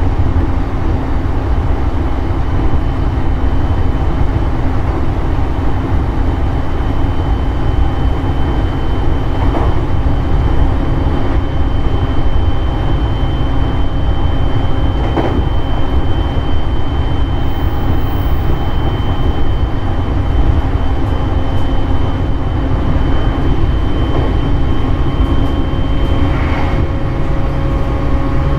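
Running sound inside a JR East E531 series electric train at steady speed: a constant heavy rumble of wheels on rail under a steady high whine, with a couple of faint knocks. Near the end the whine fades and lower hums take over.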